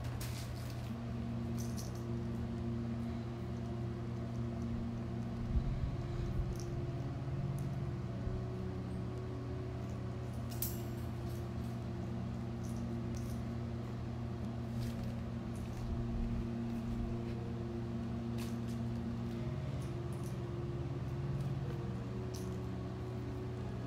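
A steady low hum with a few faint steady tones above it, with scattered light taps and clicks from kittens scampering and pouncing on a tile floor.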